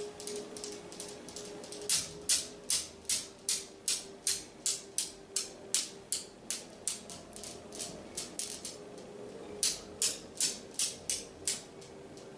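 A rhythmic rattling, about two and a half sharp strokes a second, in two runs with a short pause between, over a faint steady hum.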